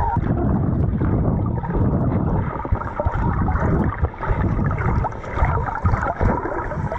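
Muffled underwater rumble and gurgling of water churned by hands pushing a toy monster truck through the shallows, heard with the microphone submerged; the noise swells and dips unevenly.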